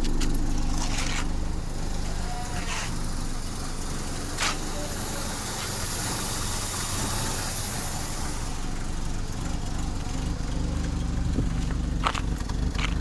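Peugeot 505's carburetted petrol engine idling steadily, freshly refitted with a carburetor that has not been tuned. A few short sharp clicks or taps are heard over it.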